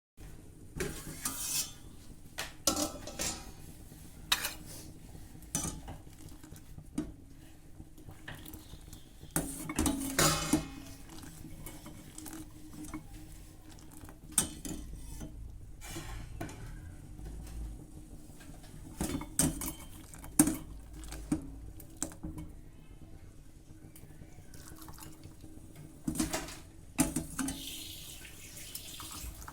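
Kitchen utensils clinking and knocking against pots and dishes in scattered, irregular clatters.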